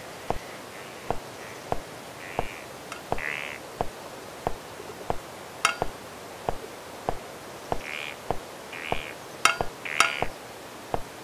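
Footsteps on a wooden bridge deck, an even walking pace of about three steps every two seconds, over a steady hiss.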